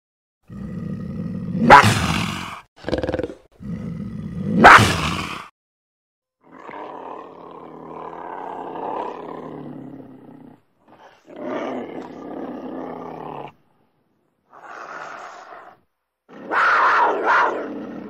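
Cougar vocalizations: two loud, sharp snarls in the first five seconds, then a series of separate growling calls, each one to four seconds long, with short silences between them.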